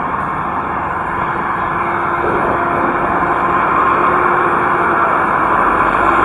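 Diesel engines of a heavy road-building machine and a water tanker truck running steadily as they work the road bed, growing slowly louder as they come closer.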